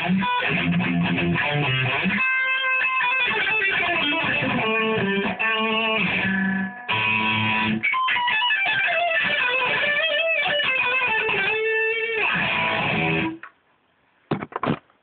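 Electric guitar being played, a run of changing notes and chords that stops abruptly about 13 seconds in. A few short knocks follow near the end.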